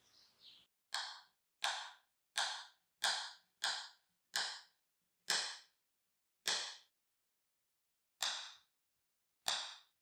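Kitchen knife slicing a peeled banana on a wooden cutting board: ten sharp chops of the blade onto the board, each ringing briefly. They come a little over one a second at first and slow toward the end.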